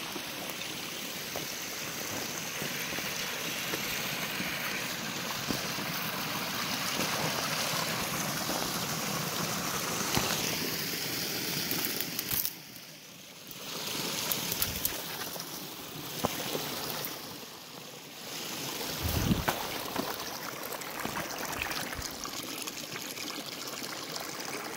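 Snowmelt-fed creek running, a steady rush of water that drops away briefly twice, about halfway and again about three quarters of the way through.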